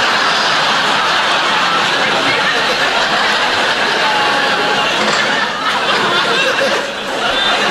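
Studio audience laughing, a long sustained wave of laughter with a brief dip near the end.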